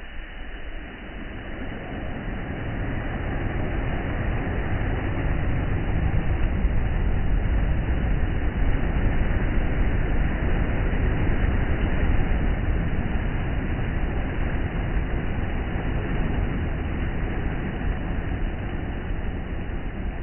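Sea surf rushing and rumbling, heavy in the low end. A wave swell builds over the first several seconds, peaks about halfway through and slowly eases off.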